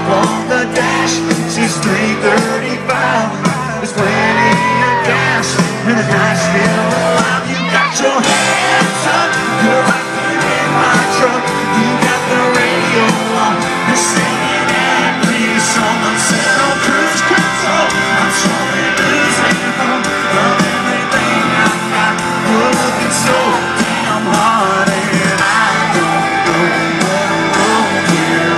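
Live country-rock band playing loudly through a concert sound system, drums and guitars, with some singing and shouting over it.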